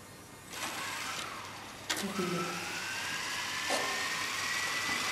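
Small electric RC helicopter spooling up under gentle throttle: a faint hiss begins about half a second in, then a click and a motor-and-rotor whine that rises slowly in pitch.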